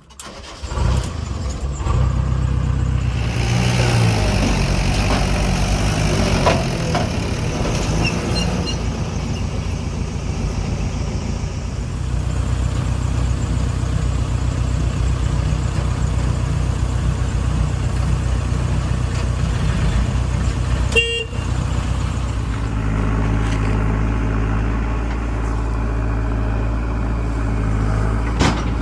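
Diesel engines of a backhoe loader and tractors running steadily, the engine note rising and falling over the first several seconds, then settling. There is one brief sharp sound about two-thirds of the way through.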